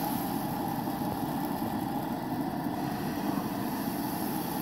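Gas camp stove burner running with a steady, even rushing sound under a frying pan.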